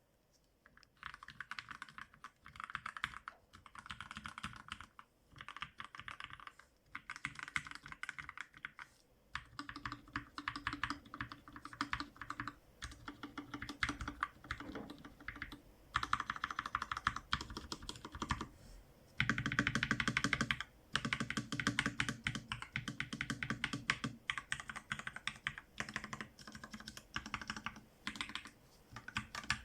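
Typing on a GMMK TKL mechanical keyboard with linear Gateron Black switches and PBT keycaps: fast runs of key clacks in bursts, with short pauses between them.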